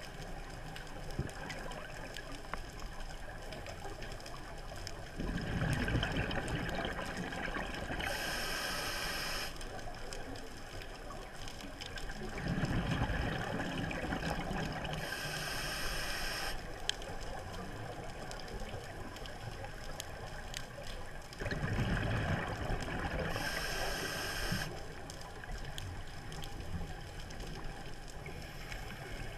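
Scuba diver breathing through a regulator underwater, three breaths about eight seconds apart: each is a few seconds of exhaled bubbles followed by a short hiss of the regulator on the inhale.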